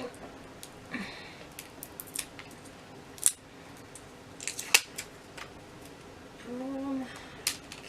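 A lip gloss's stiff plastic packaging being worked open by hand: a string of sharp plastic clicks and snaps, the loudest two in the middle, with a short hummed murmur near the end.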